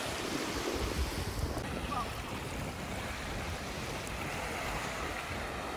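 Small Baltic Sea waves washing onto a sandy beach, a steady surf noise, with wind buffeting the microphone.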